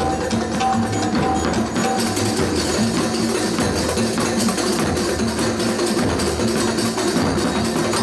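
Live ensemble music with dense percussion and short pitched notes repeating over it, at a steady level.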